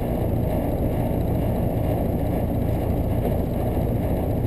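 Outdoor unit of a 3-ton central air conditioner running steadily, compressor and condenser fan on, after its tripped breaker has been reset.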